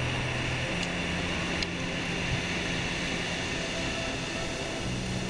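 Steady rushing noise of wind and surf on an open beach.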